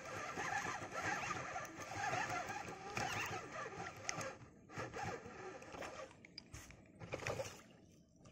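Fishing reel being cranked, a rapid zipper-like winding as line is retrieved, going intermittent after about four seconds.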